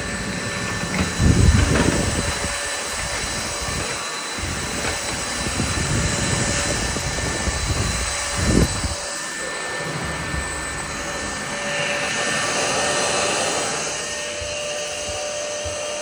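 Numatic Hetty Quick cordless stick vacuum running steadily, a rushing air sound with a high motor whine, as the powered brush head is pushed over tiled floor and then onto carpet. Two low thumps, about a second in and near the middle.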